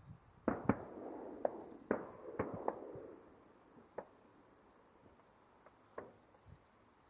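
Distant fireworks display heard through trees: a quick run of bangs and crackle in the first three seconds, then single bangs about four and six seconds in.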